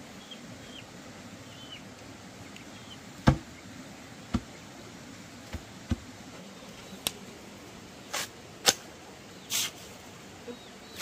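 Several irregular sharp knocks, the loudest a little over three seconds in, with two short rasping bursts in the second half, typical of hand work with wood or bamboo; faint high chirps in the first few seconds.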